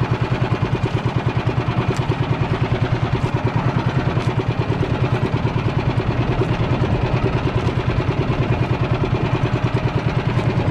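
Small boat engine running steadily with a rapid, even chugging.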